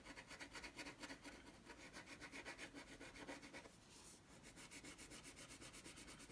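Faint scratching of colouring on paper, quick back-and-forth strokes several a second, with a brief pause about four seconds in.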